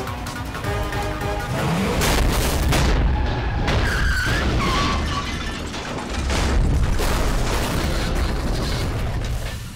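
Film soundtrack of an SUV rolling over: heavy booms and crashing metal over dramatic music, with a short high squeal about four seconds in.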